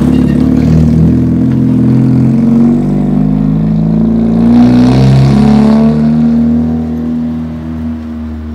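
2008 Honda Civic's four-cylinder engine and exhaust accelerating past and driving off down the street. The engine note is loudest about five seconds in, then fades as the car pulls away.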